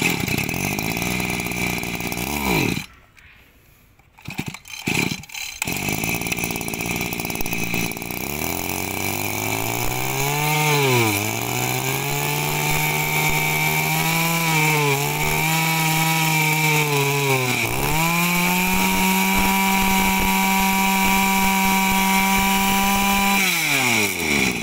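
Used Stihl FS22 brush cutter's small 23 cc two-stroke engine. It idles, cuts out about three seconds in, and catches again after a few short starter pulls. From about eight seconds it is revved up and down several times, held at high revs, and let back down to idle near the end.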